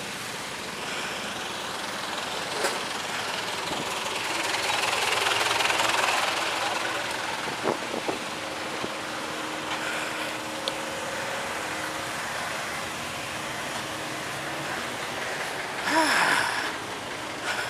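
Road traffic heard from a bicycle filtering through slow, congested lanes: a steady mix of idling and creeping car and motorcycle engines with tyre noise. It swells louder about five seconds in, has a few short clicks, and a short loud sound comes near the end.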